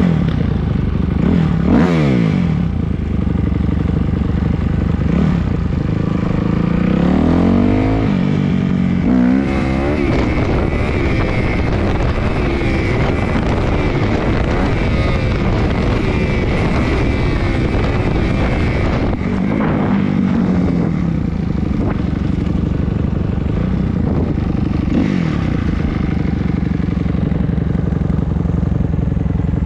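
Dirt bike engine under the rider, revving up and down through the gears several times, with a steadier held stretch in the middle.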